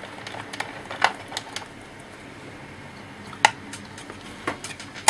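Scattered light clicks and taps of a screwdriver and small screws against the plastic laptop case as screws are taken out, with one sharper click about three and a half seconds in.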